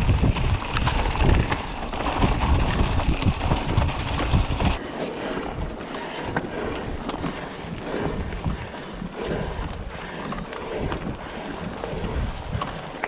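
Wind buffeting the microphone of a camera on a moving mountain bike, with the rolling noise of the ride underneath. The heavy wind rumble drops off suddenly about five seconds in, leaving a lighter crackling trail noise.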